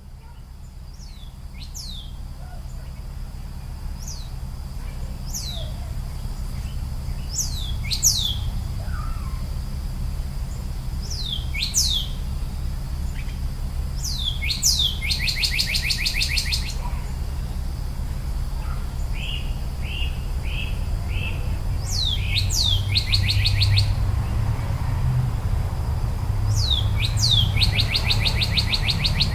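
Wild songbirds chirping and singing in the woods: short falling chirps repeat, and a rapid trill comes three times, over a steady low rumble. The sound fades in over the first few seconds.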